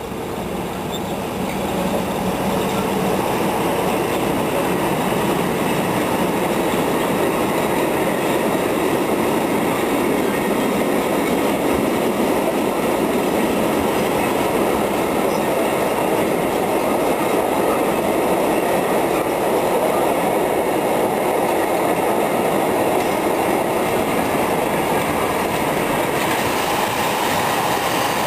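Freight train of high-sided wagons rolling past close by behind an ET22 electric locomotive: a steady loud rumble of wheels on rail that builds over the first two seconds as the locomotive goes by, then holds even.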